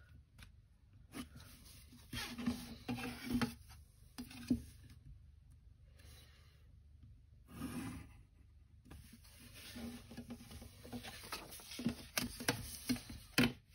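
Pencil scratching lines on paper along a clear plastic set square, in short bursts with pauses, the set square and paper sheets being slid and shifted between strokes. A few light clicks near the end as sheets are handled.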